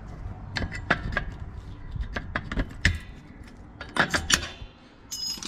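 Metal clinks and rattles of a Toyota Hilux's rear drum brake hardware, the shoe springs and hold-down parts, being worked loose with pliers. They come in bursts about a second in, around two and a half seconds and around four seconds in, some with a short metallic ring.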